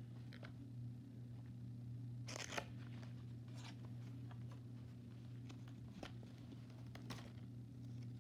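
Faint scratching, clicking and rustling of a small cardboard toy box and plastic wrapping being handled and opened, with a brief louder tearing scrape about two and a half seconds in, over a steady low hum.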